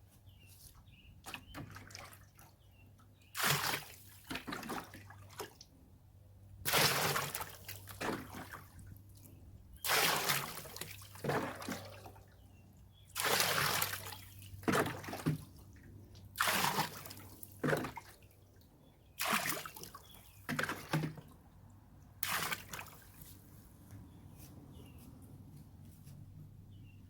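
Rainwater being poured into a trash can in a series of pours. There are seven splashing pours about three seconds apart, each followed by dribbling, and they stop about 23 seconds in.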